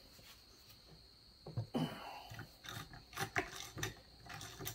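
Ratchet wrench clicking in short, scattered runs, with a few light metal clinks, as bolts are backed out of a Peerless 206 transaxle case. Quiet for about the first second and a half.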